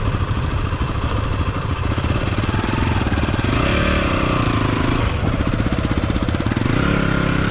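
Dirt bike engine running, revved up and back down about three and a half seconds in and again near the end, over a steady low idle.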